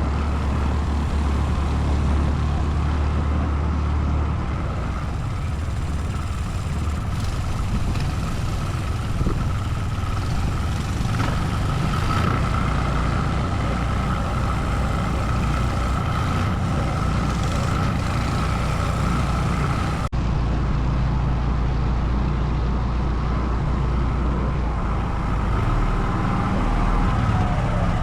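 ATV engine running steadily while riding, with a low rumble and a faint steady whine. A brief dropout about 20 seconds in, after which the sound carries on.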